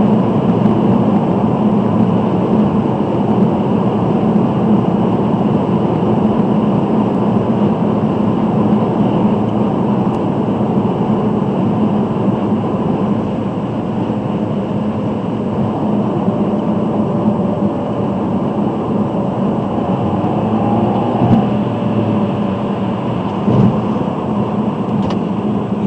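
Steady road and engine noise of a car cruising at highway speed, heard from inside the cabin.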